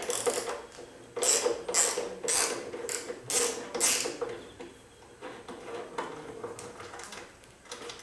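Mechanical clicking and rattling: a run of sharp bursts about twice a second for a few seconds, then fainter ones, over a faint steady hum.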